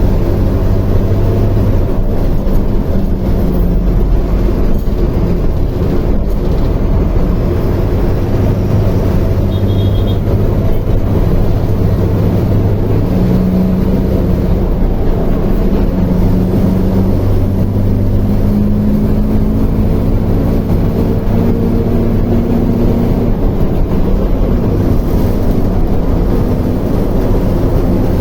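Diesel engine of a Mercedes-Benz OF 1721L bus (BlueTec 5) running steadily in a low drone, its pitch drifting slightly up and down.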